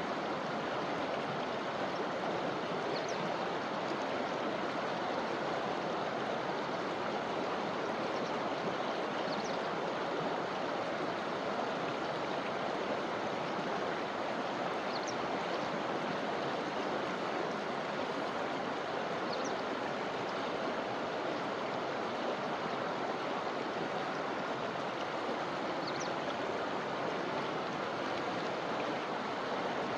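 River water flowing and splashing over rocks in a steady, even rush. A faint high chirp comes through every five or six seconds.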